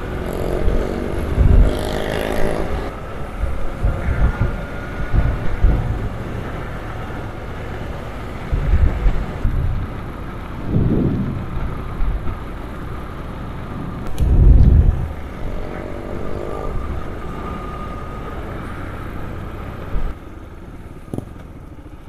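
Yamaha XTZ 125 single-cylinder four-stroke motorcycle engine running under way, with several short low rumbles over it. The engine note quietens about two seconds before the end.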